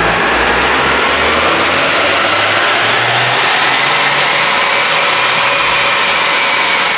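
Toyota GR Corolla's 1.6-litre turbocharged three-cylinder engine running under load on a chassis dyno, its wheels spinning the rollers. The engine is mixed with a loud, steady rush of tyre and roller noise that holds one level and cuts off suddenly at the end.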